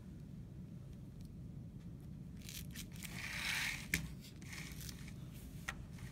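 Plastic drafting triangle being moved over tracing paper on a drafting table: a rustling scrape about halfway through that ends in a sharp click, then a shorter rustle and a second click near the end.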